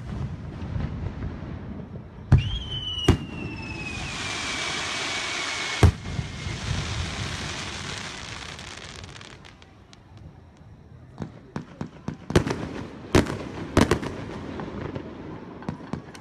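Aerial fireworks shells bursting with loud bangs, one of them followed by a high whistle that slowly falls in pitch over a few seconds, then a spell of hissing. Near the end comes a fast run of sharp crackling pops.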